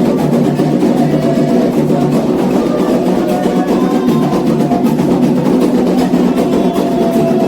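Candomblé ceremonial drumming: atabaque hand drums playing a continuous, steady rhythm.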